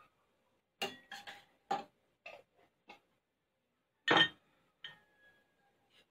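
Metal spoon clinking against a glass jar and a stainless steel pan: a quick run of sharp clinks in the first three seconds, a louder knock just after four seconds, then one clink that rings on briefly.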